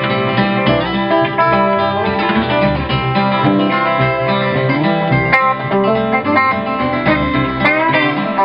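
Instrumental close of a country song, played on acoustic guitar and other plucked strings without singing.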